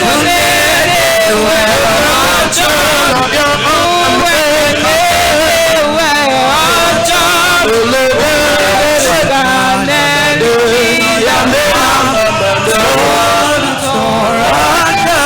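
Worship music: a male voice singing or chanting over continuous band accompaniment.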